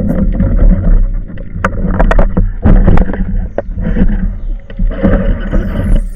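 Small boat on the water: a heavy, uneven low rumble with scattered sharp knocks.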